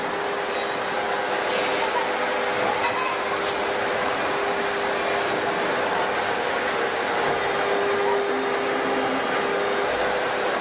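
Large forging press running steadily while its dome-shaped die presses a red-hot steel plate into a dished shape: a continuous rushing hiss with a steady hum-like whine underneath, and no blows.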